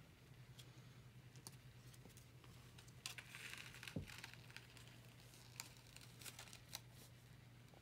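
Near silence: a faint steady low hum with scattered small clicks. About three seconds in comes a brief scratchy rustle that ends in a soft thump, and then a few more light clicks.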